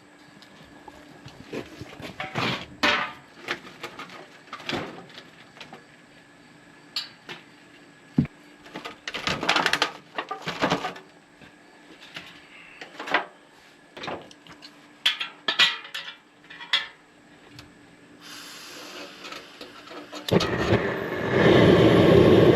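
Scattered knocks and clatter of ears of sweet corn being handled and put into a pot of boiling water for blanching. About 20 seconds in, a loud steady rushing noise starts.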